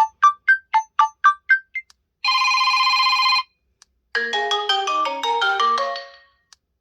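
HTC U23 Pro ringtones playing one after another. First comes a quick run of short, bright chime notes, about four a second, then a steady electronic ring lasting just over a second. Last is a short melodic jingle that fades out.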